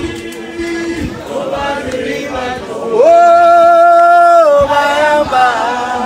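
A group of voices singing a chant-like song, with one long, loud held note about halfway through.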